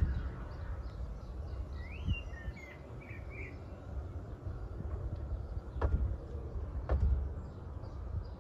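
A bird chirps a short run of notes about two seconds in, over a steady low rumble. Two sharp knocks about a second apart come near six and seven seconds.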